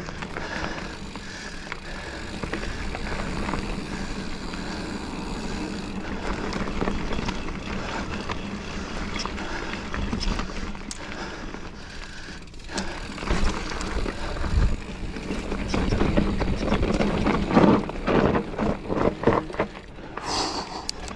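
Giant Fathom mountain bike being ridden along a dirt trail: tyre noise on dirt and the bike rattling, getting louder and rougher in the second half.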